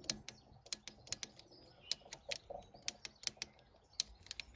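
Hand tools working on engine fasteners: a string of irregular, light clicks and taps.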